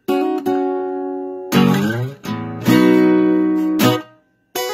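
Acoustic guitar strumming chords, each strum ringing on for about a second, with a brief stop just after four seconds in and a couple of quick, short strums near the end.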